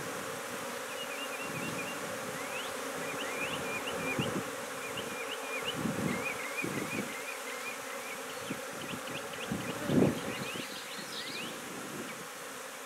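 A honey bee swarm buzzing steadily as it settles into an open nuc box, freshly dumped in and stirred up. A few dull knocks come in, the loudest about ten seconds in.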